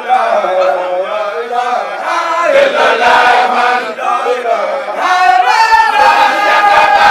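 A group of voices chanting together in long held notes that bend up and down, softer for a stretch early on and swelling fuller again after about five seconds.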